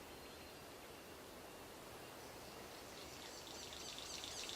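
Faint rainforest ambience. About three seconds in, a high, fast-pulsing insect trill grows louder.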